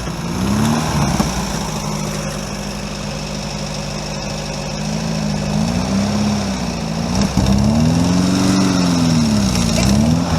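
Vehicle engine running under load during a winch pull on a stuck Bobcat, its pitch rising and falling several times in slow sweeps as it revs up and down, most strongly in the second half.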